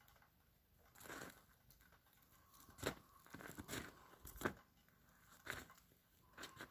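Faint footsteps crunching in snow, a crackly step about once a second.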